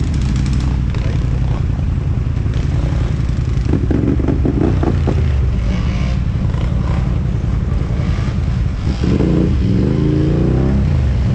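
Ural truck's engine running under way with a heavy, steady low drone, rising in pitch about nine seconds in as it accelerates.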